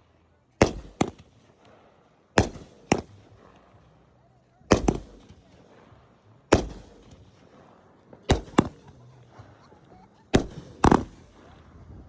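Fireworks going off in a string of sharp bangs, mostly in pairs, with one pair about every two seconds.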